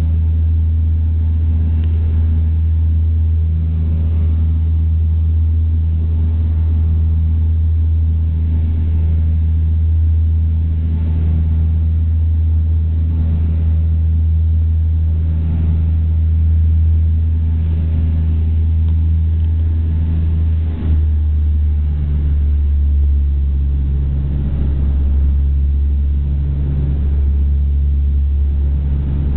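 Cabin drone of a Bombardier Dash 8-200's twin turboprops and propellers at climb power, a loud steady low hum with a throbbing tone. About two-thirds of the way through there is a brief click and the drone settles to a slightly lower pitch, typical of the propeller speed being brought back after takeoff.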